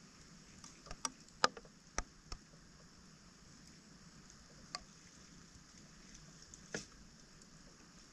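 Wet debris being cleared by hand from a roadside storm drain: a few sharp clicks and knocks, bunched in the first two seconds or so, with two more later, over a faint steady hiss.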